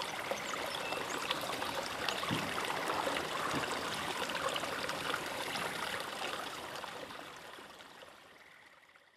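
Water trickling and gurgling with many small ticks, fading out over the last few seconds.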